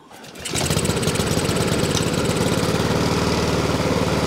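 A Honda lawnmower's single-cylinder four-stroke engine catches about half a second in and then runs steadily. It is on the fast throttle setting but runs slowly, ticking over too low: the governor spring has too little tension.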